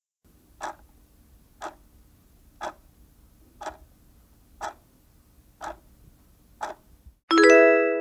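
Countdown-timer sound effect: a clock ticking once a second, seven ticks over a faint steady hum, then a bright ringing chime about seven seconds in as the countdown runs out.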